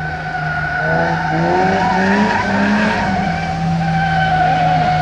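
An SUV's tyres squeal steadily on asphalt as it drifts sideways, with its engine revving in rising sweeps between about one and three seconds in.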